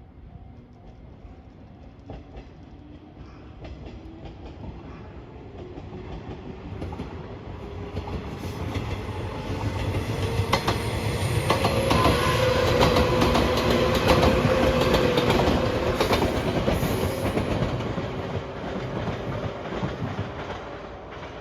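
A train passing close by on the line: its running sound swells over several seconds, peaks with wheels clicking rapidly over the rail joints, then fades away.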